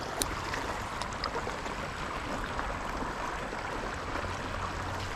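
Steady running water, a constant trickling stream sound, with a faint tick about a quarter second in.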